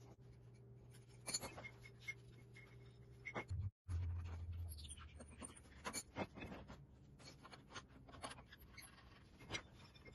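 Faint, irregular clinks, knocks and scraping of hand tools against the rusty metal fittings of an old wooden cart as it is taken apart, over a low steady hum.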